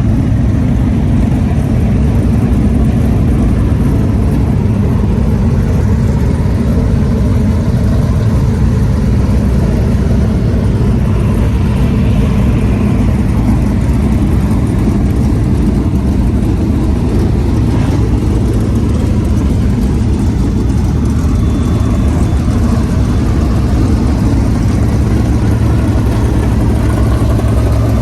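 Dirt super late model race cars' V8 engines running during warm-up, a loud, steady rumble, with one higher engine note swelling and fading about twelve seconds in.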